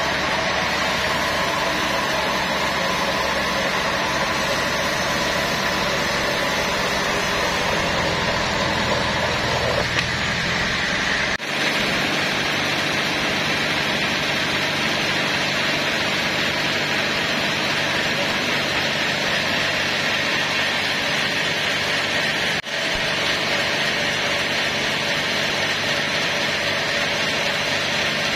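Vertical band sawmill running steadily while sawing a teak log lengthwise into slabs. The sound changes abruptly twice, about a third and about four-fifths of the way through.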